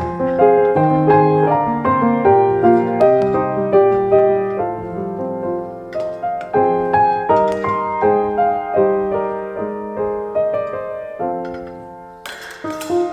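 Background solo piano music playing a gentle melody of struck notes. A short rushing noise comes in about a second before the end.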